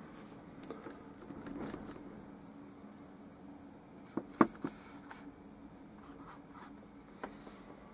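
Paintbrush stroking and dabbing oil paint onto canvas in soft, scratchy strokes, with a few sharp taps, the loudest about halfway through.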